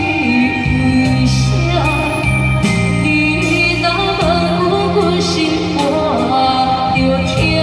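Karaoke backing track of a Hokkien pop ballad playing an instrumental passage: a wavering lead melody over steady bass notes and an even beat.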